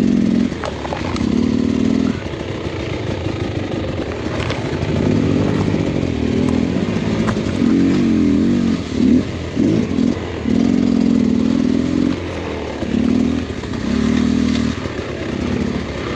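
Dirt bike engine revving in short throttle bursts, its pitch rising and falling as it picks its way through thick brush. Branches scrape and snap against the bike between bursts.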